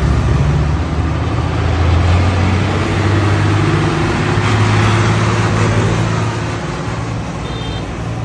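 Heavy diesel trucks passing close on a road, their engines a steady low drone under tyre and traffic noise; loudest around the middle as a cargo truck goes right by, then fading.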